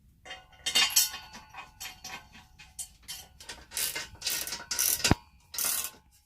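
Irregular metallic clinks, rattles and scrapes of pillar drill parts and hand tools being worked during assembly, some strokes ringing briefly.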